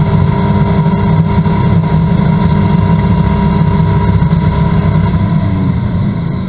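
Corvette race car's V8 running at steady high revs under full throttle, heard from inside the cockpit at about 150 mph with wind and road noise. Near the end the sound eases and drops a little as the car begins to slow.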